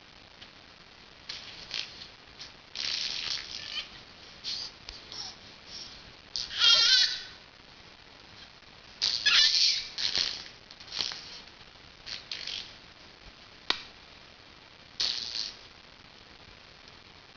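A baby making sounds with her tongue and mouth: short, irregular bursts of spluttering mouth noise with pauses between them. The two loudest bursts, about seven and ten seconds in, carry a brief pitched squeal of voice.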